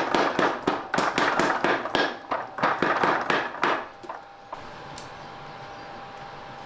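Mechanical power hammer pounding a glowing iron billet on the anvil, about four blows a second, stopping about four seconds in. Then a steady hum with a faint whine from the forge's air blower.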